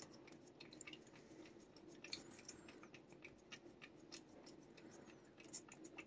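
Cat licking lick-treat paste from a squeeze tube: faint, irregular wet tongue clicks, several a second, over a faint steady hum.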